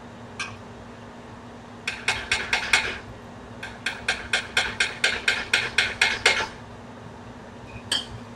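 Utensil stirring gravy in a metal saucepan, clacking against the pan in quick rhythmic strokes: a short run of about five, then a longer run of about a dozen at roughly four a second, with single taps before and after. A faint steady low hum runs underneath.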